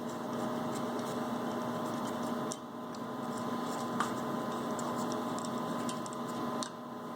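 Steady electrical or mechanical hum with an even hiss, and a few faint clicks of hand tools on metal as bolts are worked loose. The hiss drops away briefly about two and a half seconds in and again near the end.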